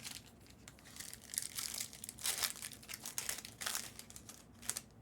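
Crinkling and rustling of trading-card packs and cards being handled, heard as a series of short rustles, the loudest about two and a half seconds in.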